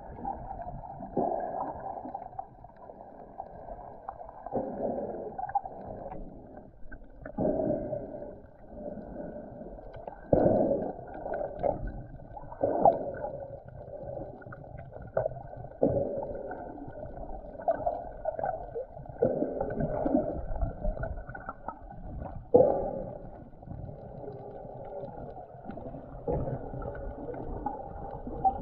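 Sea water surging and gurgling, heard underwater through an action camera's submerged microphone: muffled, with irregular swells every couple of seconds.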